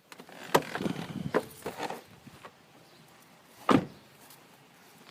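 Several knocks with some rustling, then a single heavier thud a little under four seconds in.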